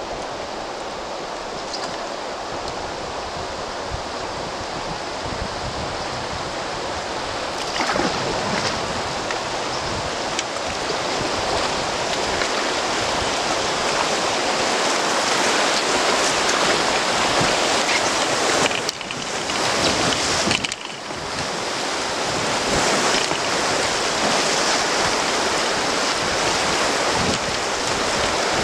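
Low-flow river rapids rushing steadily, the water noise stepping up about eight seconds in, with two brief dips in the middle.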